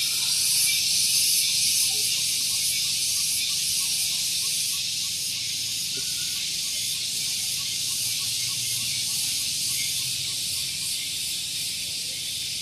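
Cicadas singing in a continuous chorus: a very shrill, steady high buzz with a faint pulsing texture.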